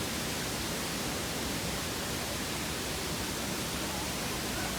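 Waterfall's falling water rushing in a steady, even hiss.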